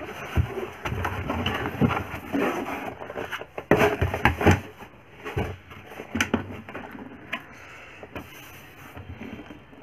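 Cardboard shipping box handled by hand: flaps rustling and scraping and the boxed laptop sliding and knocking against the cardboard, loudest about four seconds in and quieter near the end.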